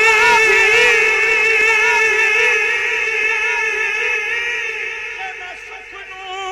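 A singer holds one long note at the end of a line of a Punjabi Sufi kalam, the pitch wavering at first and then steadier, fading away over the last couple of seconds.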